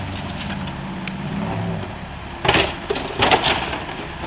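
Komatsu excavator's diesel engine running under hydraulic load while it wrecks an old car, with two loud bangs of the car's body being struck, about two and a half seconds in and again a little later.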